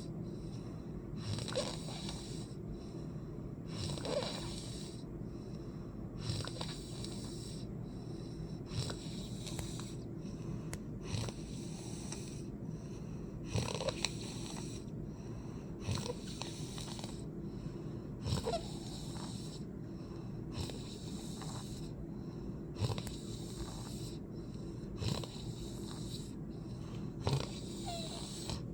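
A person snoring in sleep, with a wheezy breath repeating about every two to three seconds over a steady low hum.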